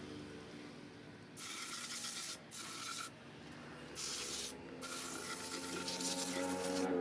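Compressed air from a workshop air hose blowing into a bare scooter engine's cylinder studs and crankcase: four hissing blasts starting about a second and a half in, the last about two seconds long.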